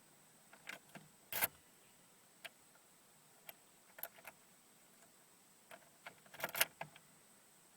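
Scattered sharp clicks and light knocks, a single loud one about a second and a half in and a quick cluster of them near the end.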